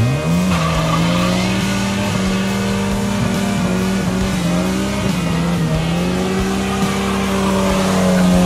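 Chevrolet S10 pickup doing a burnout: the engine revs up sharply at the start and is held at high revs while the rear tyres spin and squeal.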